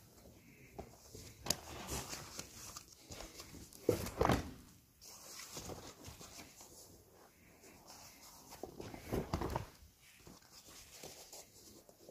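Natural leather hides being handled and turned over, rustling and flapping in irregular swishes, the loudest about four seconds in and another about nine seconds in.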